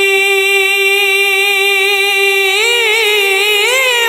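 Male naat singer holding one long sung note. About two and a half seconds in, he bends the note into quick ornamented turns.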